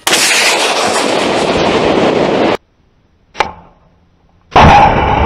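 A Stugna-P anti-tank guided missile fired from its tripod launcher: a sudden, loud, rushing blast of the launch and flight that lasts about two and a half seconds and then cuts off abruptly. A sharp click follows about a second later, and near the end a second loud, rushing blast begins.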